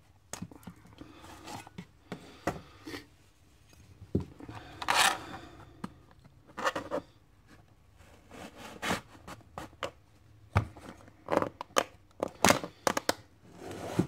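Scattered clicks, knocks and scrapes of a knife and a hard plastic clamshell blister pack being handled. There is a short scrape about five seconds in, and closer-spaced scraping strokes near the end as a serrated knife blade is set to cut the plastic.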